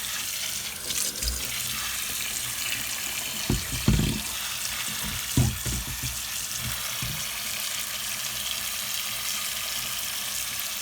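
Running water spraying onto and through a tumble dryer's condenser unit, rinsing fluff and dust out of its internal grills. A few dull knocks come about four and five and a half seconds in.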